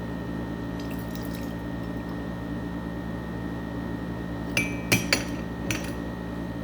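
Lemon juice dripping into a drinking glass as a lemon is squeezed by hand, with faint crackles about a second in. Near the end come a few sharp clinks against the glass, one ringing briefly.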